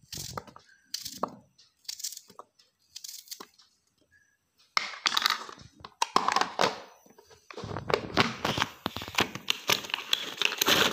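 Capsicums (bell peppers) being chopped in a vegetable chopper. First come short crunching strokes about once a second, then from about five seconds in a denser run of rapid clattering and crunching.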